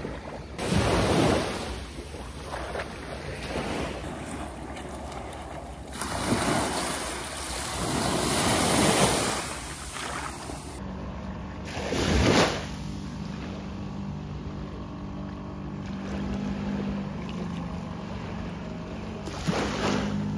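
Small waves washing up onto a sandy beach, with the wash swelling and fading in several surges, and some wind on the microphone. From about halfway on, a small motorised fishing boat's engine hums steadily underneath.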